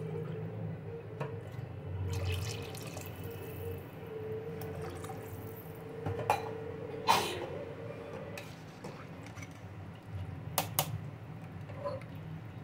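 Liquid sloshing in a large aluminium cooking pot of watery pulao broth, over a steady low hum. A few sharp metal clinks, the loudest about halfway through, as a ladle knocks the pot.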